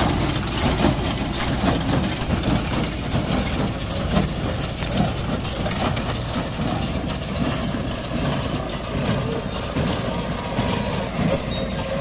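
Tractor's diesel engine running steadily as it pulls a Maschio Pitagora L small square baler at work, with frequent short clicks and knocks from the baler over the engine.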